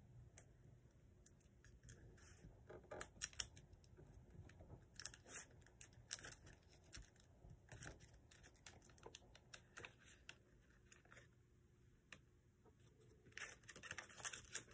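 Faint rustling and crinkling of paper being folded and creased by hand, in short irregular crackles that grow busier near the end.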